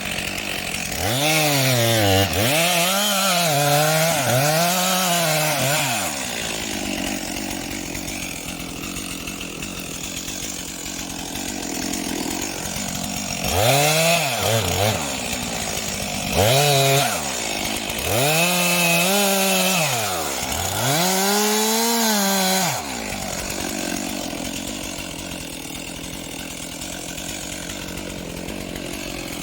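Stihl chainsaw engine idling and being revved up again and again, its pitch climbing and falling back with each blip of the throttle. It gives three revs in the first few seconds, idles for several seconds, then gives a cluster of revs over the middle and settles back to idle near the end.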